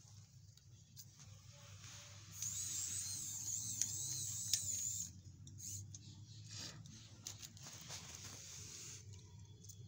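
Small battery-powered DC motor of a homemade toy car spinning up with a high, wavering whine for about two and a half seconds, grinding against the concrete floor and throwing sparks. Scattered clicks and handling noises follow as the toy is handled.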